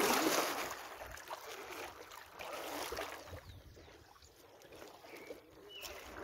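Kayak paddle strokes swishing through calm water, loudest at the start and again about three seconds in, then quieter.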